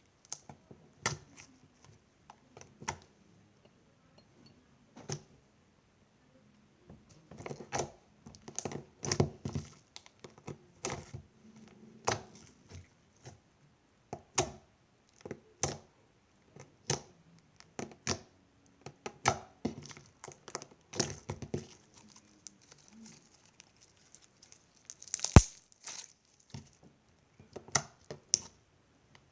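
Fingers poking and pressing slime, making irregular small pops, clicks and crackles, some in quick clusters. One sharp, louder snap comes near the end.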